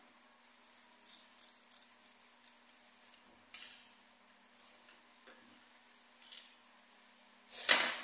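Small clicks and scrapes of hands working an XLR connector and cable, then a sharp clatter near the end as something hard is set down on the stone countertop. A faint steady low hum runs underneath.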